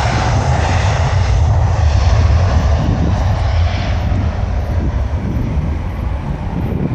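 Aircraft engines of a plane passing close by: a loud, low rumble with a broad rush over it, loudest about two seconds in and easing off over the following seconds.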